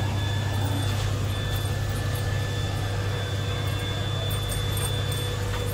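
A steady low hum, with fainter steady high-pitched tones above it.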